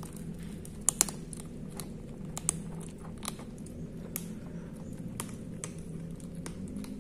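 Kittens eating dry kibble from a plastic bowl: irregular crunches and clicks of chewing, with two loud crunches about a second in.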